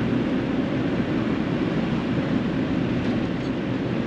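Steady engine and road noise of a vehicle on the move, even and unbroken.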